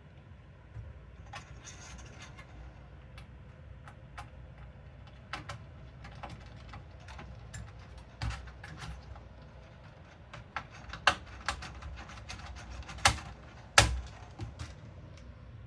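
Scattered small clicks and light taps of metal and plastic computer hardware being handled inside a PC case, with a few sharper knocks near the end.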